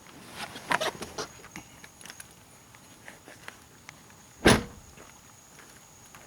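A few light clicks and knocks, then one heavy thunk from the car body about four and a half seconds in, as the car is worked on to open the hood.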